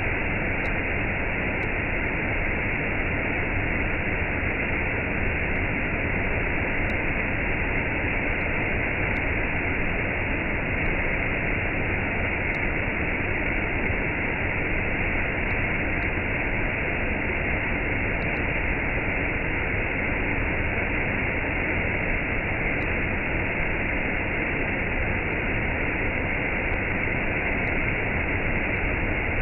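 Waterfall with a cascade, water falling and rushing in a steady, unbroken roar-like hiss.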